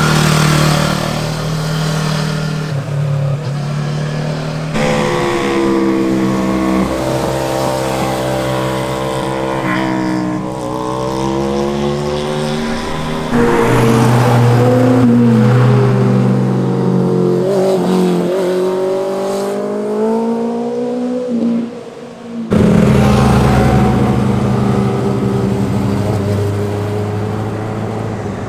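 Sport motorcycles, the first a Yamaha YZF-R3, passing through a tight hairpin one after another. Each engine's pitch rises and falls as the rider backs off, downshifts and accelerates out of the turn. The sound changes abruptly a few times as one pass gives way to the next.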